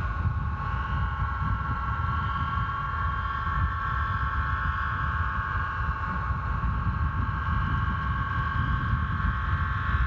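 Homemade aeolian harp with fishing-line strings singing in the wind: a steady chord of several sustained high tones, over low wind rumble on the microphone.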